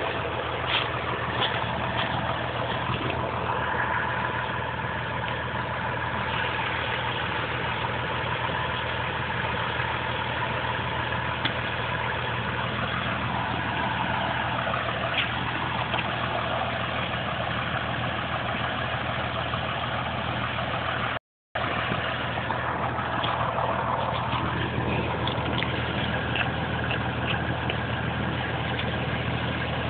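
Caterpillar 535C skidder's diesel engine running steadily at idle, with a few small handling knocks near the start. The sound cuts out for a moment about two-thirds of the way through.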